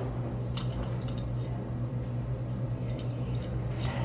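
Steady low mechanical hum in a small room, typical of a fan or ventilation unit running, with a few light clicks and knocks from things being handled, once about half a second in, again at about a second, and near the end.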